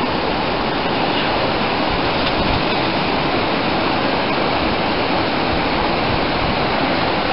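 Fast mountain creek rushing over rocks: a loud, steady, even roar of whitewater.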